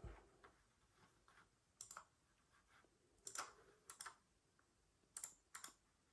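Faint, scattered clicks of a computer keyboard and mouse being used, some coming in quick pairs.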